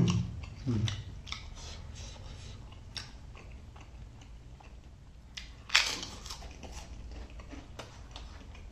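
Mouth sounds of someone eating: chewing with scattered small crunches and wet clicks, and one louder, sharper crunch about six seconds in.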